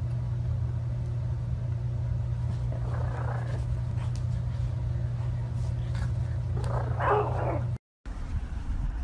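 A French bulldog puppy barks twice over a steady low hum: a short bark about three seconds in and a louder one about seven seconds in.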